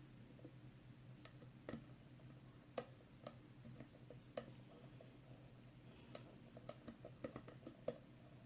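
Faint, irregular metallic clicks of a lock pick and tension wrench working the pin stack of an Abus 86TI/45 padlock's union core, with a quicker run of clicks between about six and eight seconds in.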